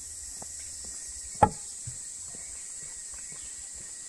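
Footsteps on a forest dirt trail under a steady high-pitched insect drone, with one sharp click about a second and a half in.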